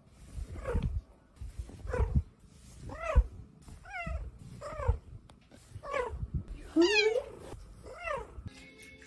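Domestic cat meowing over and over while being picked up: about eight short calls, roughly one a second, each rising then falling in pitch.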